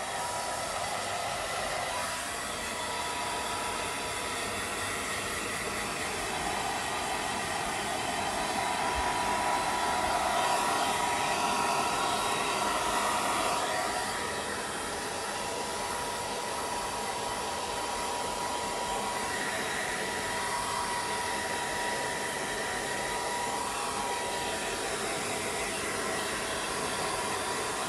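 Handheld hair dryer running steadily: a blowing hiss of air with a faint motor whine, a little louder for several seconds in the middle.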